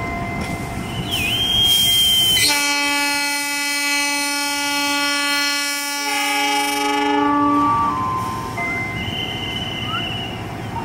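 Train horn sounding one long chord-like blast of about five seconds over the rumble of a moving train. A short high squeal comes about a second before the horn.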